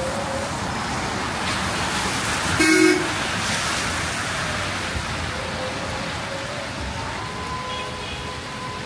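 Traffic passing on a wet city street, with one short vehicle horn toot about two and a half seconds in.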